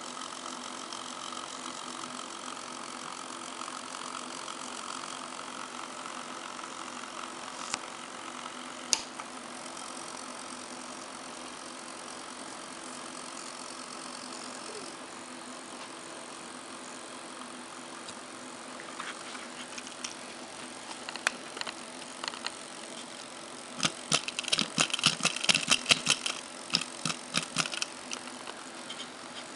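A steady hum with a few pitched tones throughout. A couple of single clicks come about a third of the way in, then near the end a run of sharp clicks and rattles from the brass linkage of a model-aircraft landing gear mock-up.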